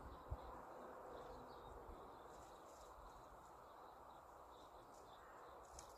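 Near silence: faint open-air ambience with scattered short, high chirps and one small knock shortly after the start.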